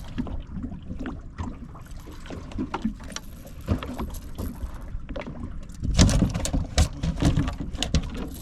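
Irregular clicks, knocks and rattles of fishing gear being handled in a boat while a hooked catfish is worked free of a landing net, over a steady low rumble. The knocks grow busier and louder about six seconds in.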